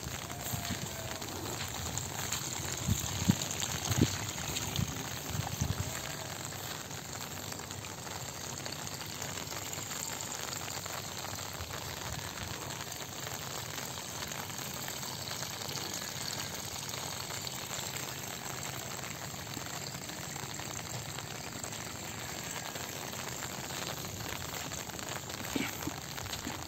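Steady hiss of light rain falling on an open field, with a few low thumps in the first several seconds.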